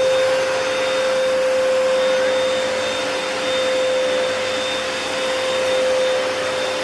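Hoover PowerDash carpet cleaner's suction motor running steadily, a loud even rush of air with a constant whine.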